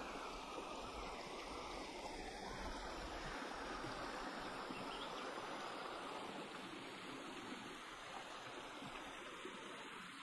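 Shallow rocky stream flowing over stones, a steady wash of running water.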